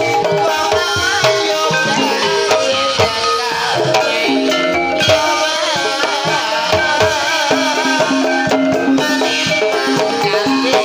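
Gamelan music accompanying an ebeg (kuda kepang) horse dance: kendang hand drums beat a steady rhythm under ringing metallophone notes, with a bending melodic line over the top.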